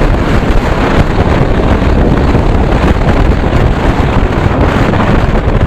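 Wind rushing loudly over the rider's microphone on a moving motorcycle, with engine and road noise underneath, as a TVS Apache RR310 is ridden at speed.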